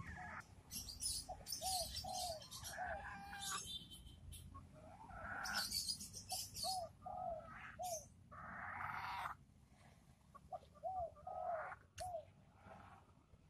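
Ayam Cemani chickens clucking: short arched call notes that come in groups of two or three throughout, with bursts of high, scratchy sound between them.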